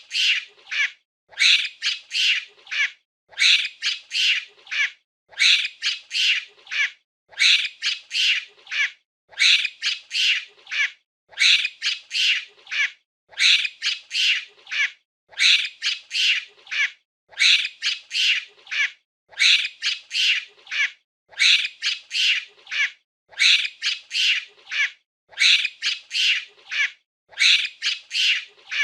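Monkey calling in short, high-pitched squawks that come in groups of three or four. The groups repeat about every two seconds in an even, unchanging rhythm, like a looped recording.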